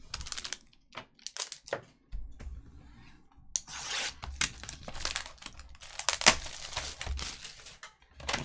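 Plastic shrink wrap on a sealed trading-card box being slit with a box cutter and torn off, crinkling. A few short scrapes and clicks come first, then dense tearing and crinkling from about halfway through.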